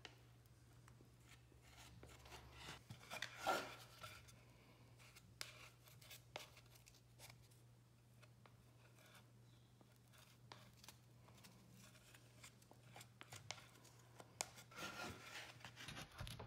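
Faint hand-tool work on furniture: scattered light clicks and rubbing, with one brief louder scrape about three and a half seconds in, over a low steady hum.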